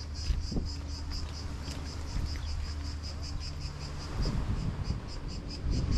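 Insects chirping in a fast, even pulse of about six chirps a second, over a steady low hum; a rougher low rumble joins about four seconds in.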